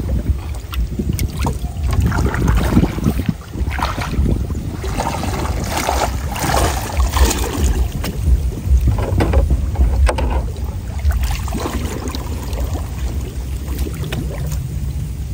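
Wind buffeting the microphone with a steady low rumble. Water sloshes and splashes irregularly as a man wades and works a fine-mesh trap net and its bamboo poles in shallow floodwater.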